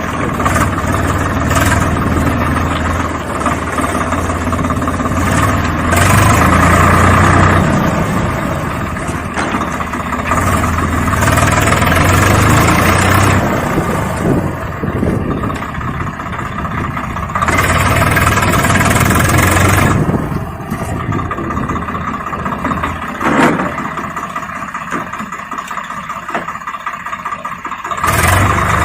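An engine running steadily, with a low hum, rising and falling in loudness every few seconds.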